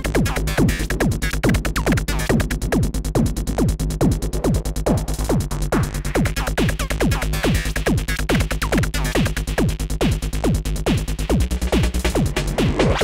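Psytrance track: a fast, driving, even pulse over a steady bass, with repeated falling synth sweeps.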